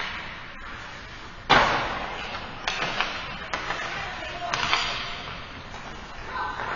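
A sharp crack of a hockey puck or stick striking hard, about a second and a half in, echoing through the ice arena, followed by lighter clacks of sticks and pucks on the ice.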